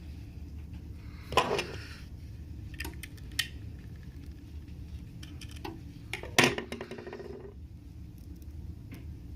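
Small metal repair tools clicking and clinking against the phone and broken glass while the cracked screen glass is picked off. Two louder, ringing clinks come about a second and a half in and about six seconds in, with lighter ticks between, over a steady low hum.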